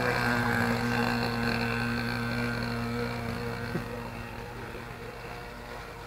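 Nitro glow engine of a radio-controlled model boat running at a steady pitch, gradually fading as the boat draws away.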